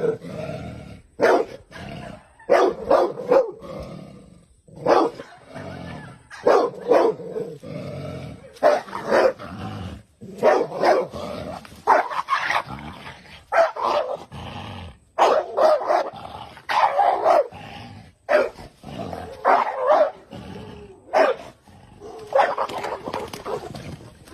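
A dog barking over and over in irregular runs of short barks.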